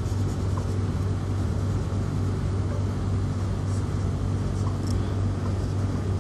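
A steady low hum of background noise, with a few faint scratches of a marker writing on a whiteboard.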